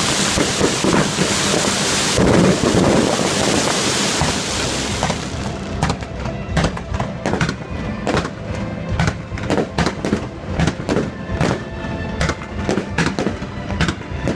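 Fireworks going off: a dense crackling hiss for the first few seconds, then a rapid run of sharp pops and bangs, several a second.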